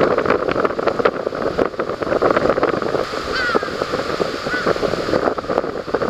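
Strong wind buffeting the microphone, with a large-billed crow giving a short call about halfway through and a fainter second call a second later.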